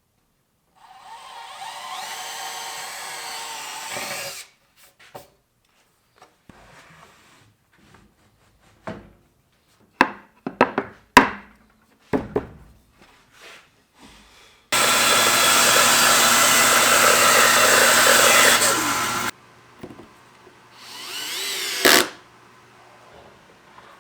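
Power tools working wood, in three separate bursts, the longest and loudest about halfway through. Sharp knocks and clicks of handling fall between them, and a low motor hum carries on briefly after the loud burst.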